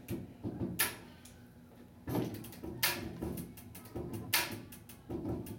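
Hip-hop beat playing as the intro to a song: sharp snare or clap hits about every second and a half over a low, steady bass line.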